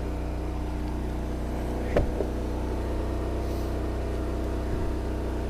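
Engine of an Eastonmade 22-28 hydraulic log splitter running steadily, with a sharp knock about two seconds in, a lighter one just after it and another near the end, as oak is split and handled on the splitter.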